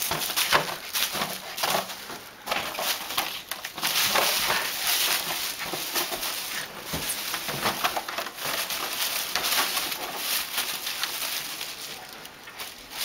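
A dog scuffling with a balloon: a dense run of short, irregular squeaks, scrapes and knocks, busiest in the first couple of seconds.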